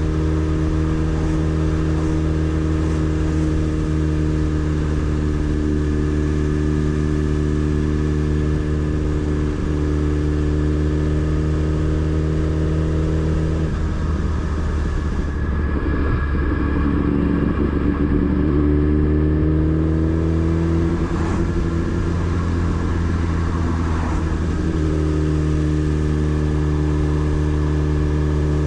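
Motorcycle engine running at steady revs. About halfway through the note breaks up and the revs rise, then it settles back to a steady note.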